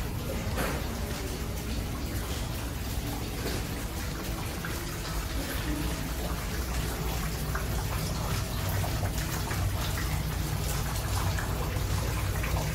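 Decorative spa fountain: water trickling and splashing steadily into a shallow basin, with a steady low hum underneath.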